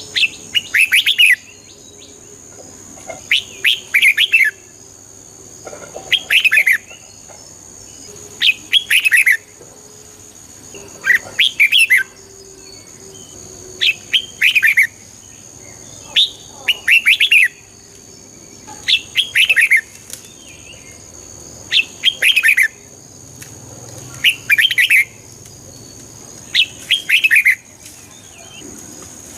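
Red-whiskered bulbul singing a short warbled phrase about every two and a half seconds, eleven phrases in a row. A faint, steady, high-pitched tone runs underneath.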